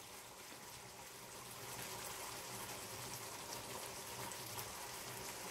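Faint, steady sizzling and simmering of a frying pan of tinned mackerel in tomato sauce, with apple cider vinegar trickling into it from a bottle. The sound grows slightly louder after a second or so.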